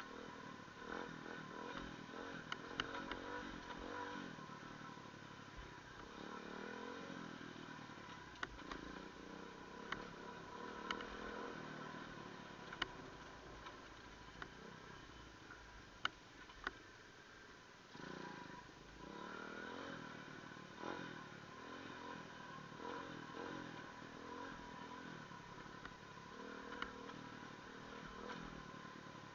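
Engine of an off-road vehicle riding over a rutted, rocky dirt track, its pitch rising and falling with the throttle, with sharp knocks from time to time as it goes over the stones.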